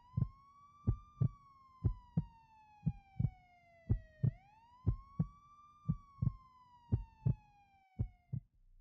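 Police siren wailing, rising quickly then falling slowly, twice. Under it a heartbeat thumps in double beats about once a second.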